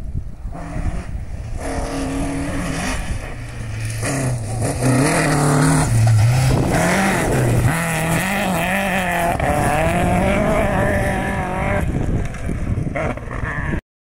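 Classic rally car's engine revving hard as it approaches and passes on a gravel stage, its pitch climbing and dropping with each gear change. It is loudest in the middle as the car goes by, then fades as it drives away.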